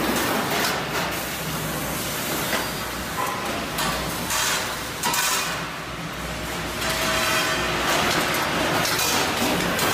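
Machinery of a steel drum production line running: a steady, noisy industrial din with scattered knocks and clanks of metal parts.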